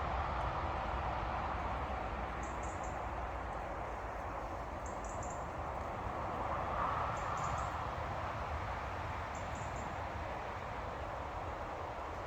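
Steady outdoor background rush with a low rumble, over which a small bird gives a short high call about every two and a half seconds, five times.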